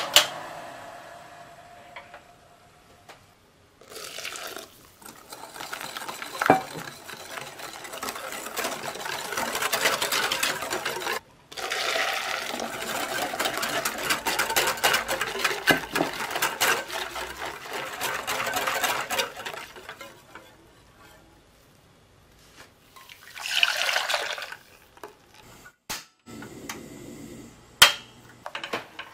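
Wire whisk beating hot lemon syrup into egg yolk, sugar and cornstarch in a glass bowl: rapid clinking of the wires on the glass and sloshing liquid, in two long stretches as the syrup is added in two parts. A shorter splash of liquid follows, and a few sharp knocks of the pan.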